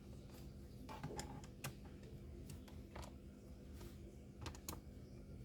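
Scattered light clicks and taps from a laptop's plastic case being handled, coming irregularly over a faint steady hum.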